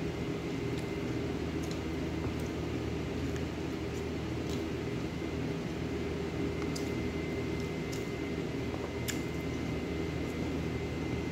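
Steady mechanical hum from a running appliance, with a faint high whine over it. A few faint short clicks and soft squishes come through now and then as rice is eaten by hand from a plate.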